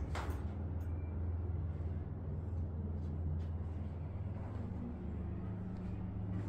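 Street ambience dominated by a vehicle engine running steadily, a low hum with a few faint clicks.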